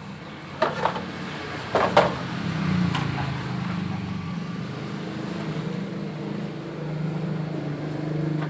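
A steady low motor hum, with sharp knocks a little over half a second and about two seconds in.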